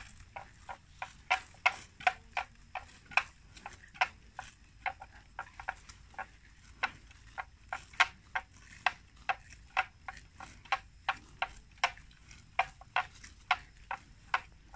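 Water buffalo grazing: a steady run of crisp, irregular snaps of grass being torn off and chewed, about two or three a second.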